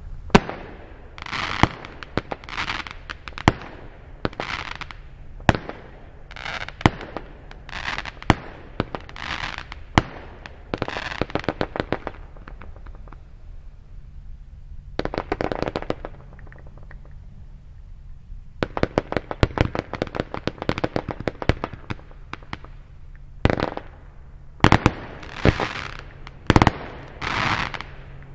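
WECO Flying Sparks fireworks battery firing a string of shots: sharp bangs, most trailed by about half a second of hissing sparks. A short lull a little before halfway, then a quick run of pops and a last flurry of bursts near the end.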